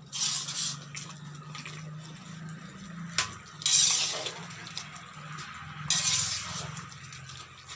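A metal spoon stirring and scraping round an iron kadai of simmering chicken and spinach curry, with the watery gravy bubbling. The stirring comes in three bursts: at the start, about three and a half seconds in, and about six seconds in, with a sharp click a little before the second.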